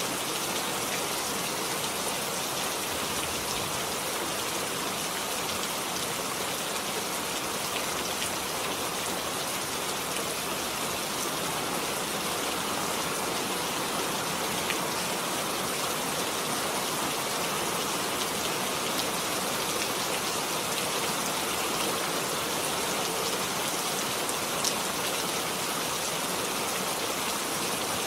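Steady rain falling on a surface, a dense even hiss with scattered individual drop clicks.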